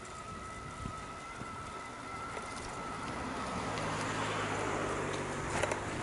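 A minivan drives past: its engine hum and tyre noise build to a peak about five seconds in, with a brief sharp clatter just before the end. A thin steady high tone sounds through the first half and fades out.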